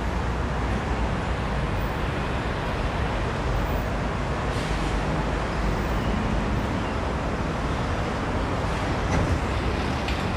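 Steady road traffic noise of a busy city street.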